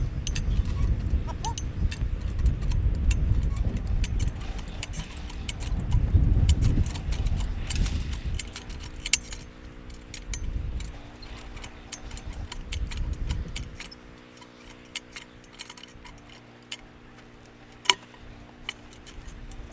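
High-lift farm jack being worked to pull a steel T-post out of the ground: repeated metallic clicks and clanks from the ratcheting jack, with one sharp click near the end. A heavy low rumble fills the first half, and a faint steady hum runs through the second half.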